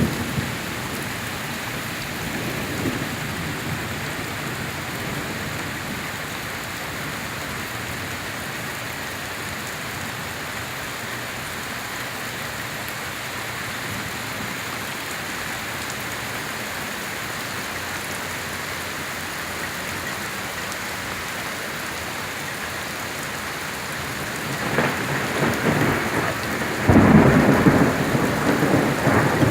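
Steady rain falling during a thunderstorm, with a deep rumble of thunder building near the end and growing louder.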